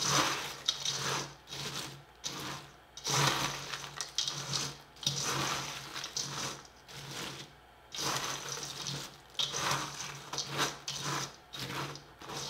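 Spatula stirring chocolate-coated Chex cereal in a stainless steel mixing bowl: the cereal rustles and scrapes against the metal in repeated sweeping strokes, about one every second or two.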